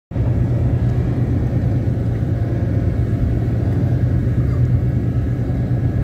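Steady low rumble of a car driving along a road: engine and road noise, even throughout, starting abruptly at the very beginning.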